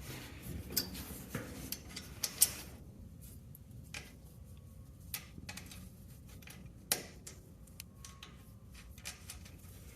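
Scattered light metallic clicks and taps as a nut is started by hand onto the bolt holding a garage door opener's chain pulley. The sharpest clicks come about two and a half seconds in and again near seven seconds.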